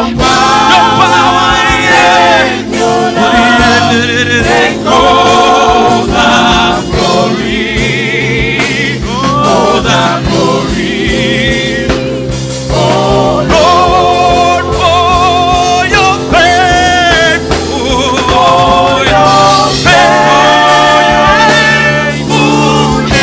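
Gospel praise-and-worship song performed live: a male lead vocalist singing with backing singers over band accompaniment with bass and drums.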